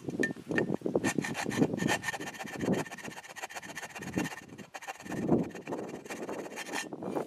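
Repeated irregular rasping, rubbing strokes of hand abrasive work on a part, with a faint steady high tone through most of it.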